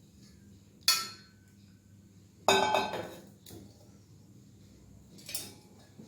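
Kitchenware being handled: two sharp clinks about a second and a half apart, each ringing briefly, then softer knocks near the end.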